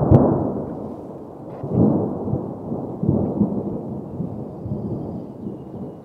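Low rumbling noise that swells and fades in several waves, loudest near the start and again about two seconds in, with one sharp click at the very start.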